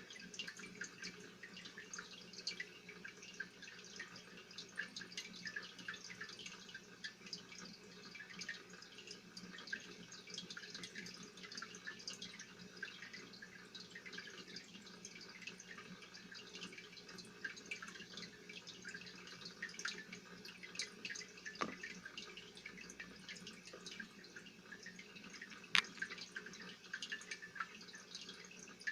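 Aquarium water bubbling and dripping in a continuous patter of small irregular plops, over a steady low hum. A single sharper click comes near the end.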